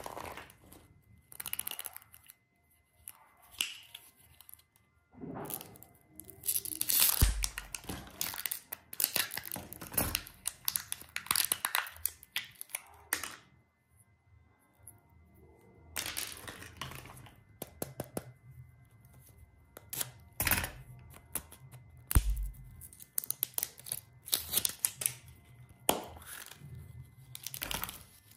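Candy and toy wrappers being torn open and crinkled by hand, in irregular bursts of rustling and tearing with quieter pauses between them. Two dull knocks come about 7 and 22 seconds in.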